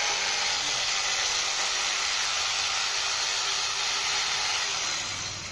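DongCheng DMQ85 electric jigsaw running and cutting a curve through a plywood board: a steady, even whir that drops off a little near the end.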